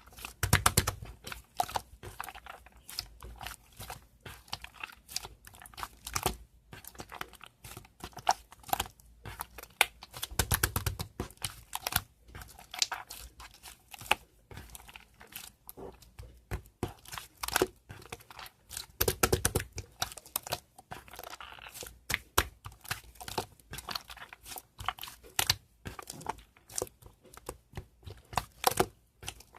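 Two-layer slime being squished, stretched and pressed by hand, giving dense crackling, popping clicks. Three heavier squishes come near the start, about a third of the way in and about two-thirds of the way in.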